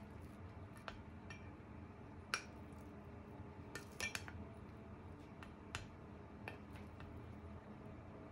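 Scattered clinks and taps of utensils against dishes: a handful of separate sharp strikes, the loudest about two and a half seconds in and a quick cluster of three around four seconds, over a low steady hum.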